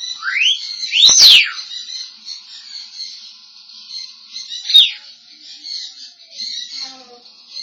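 African grey parrot whistling: a short rising whistle, then a loud rise-and-fall whistle with a sharp click about a second in, and a falling whistle near five seconds in.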